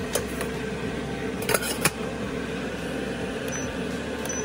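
A few sharp clinks of a ceramic dish and the metal steamer tray in the first two seconds, then two short high beeps from the electric steamer's keypad as the timer is set near the end, over a steady hum.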